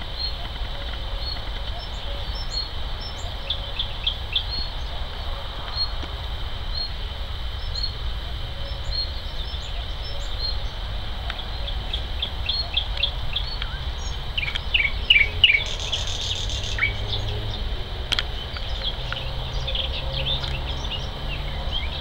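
Several woodland songbirds singing in spring. One bird repeats a short high note about once a second, and from about halfway through other birds join in with quicker, varied song phrases.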